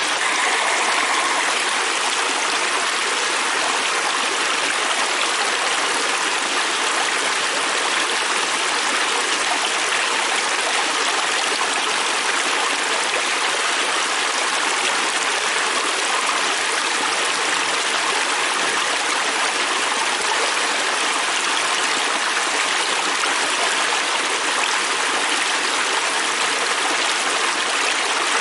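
Fast-flowing river stream rushing over rocks, a steady, even rush of water that doesn't change.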